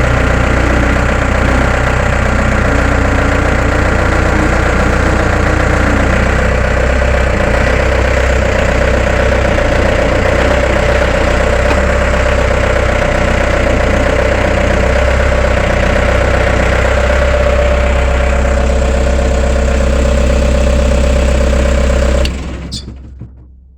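Case 1845 skid steer engine running steadily, then shut off about 22 seconds in, the sound dying away over the last second or so.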